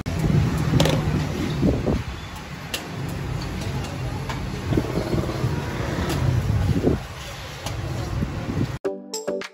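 A vehicle engine running steadily, with scattered light metal clinks and taps as a truck clutch disc and pressure plate are handled and fitted together. Music starts abruptly near the end.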